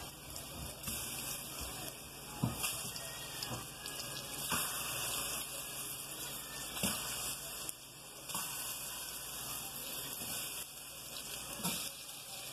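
Plantain slices frying in hot oil in a pan: a steady sizzle, with a few sharp clicks now and then.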